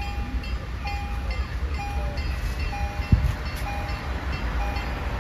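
Electronic level-crossing warning bells sounding a repeating ding about once a second, with a higher chime out of step with it, over a steady low rumble of train and road traffic. A single sharp thump about three seconds in.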